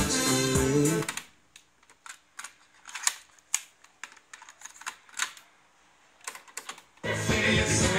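Music playing from a cassette stops about a second in as the Sansui D-1000W cassette deck's stop key is pressed. Then come a series of sharp clicks and clacks from the deck's keys, eject door and the plastic cassette being taken out and put back. Music starts again near the end when play is pressed.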